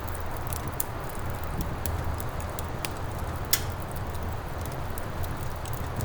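Wood fire crackling in a fireplace: irregular sharp pops and snaps over a steady low rush, with one louder pop about three and a half seconds in.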